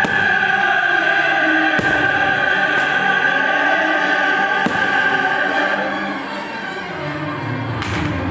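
Operatic choral music with orchestra, the long notes of singers held over it, played loud for a fireworks display. A few sharp firework bangs cut across it.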